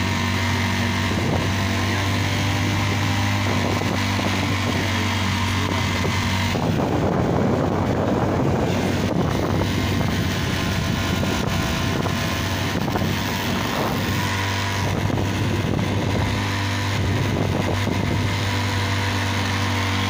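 Motorcycle engine running at a steady cruise while riding, heard from the bike. A louder rushing noise comes in for a couple of seconds around seven to nine seconds in.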